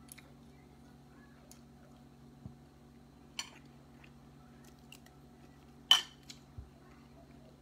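A few scattered clinks and taps of tableware (spoon, fork and plates), the loudest about six seconds in, over a faint steady hum.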